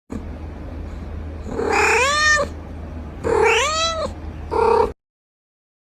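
Domestic cat meowing three times over a steady low hum: two long meows that rise then fall in pitch, then a short one, after which the sound cuts off suddenly.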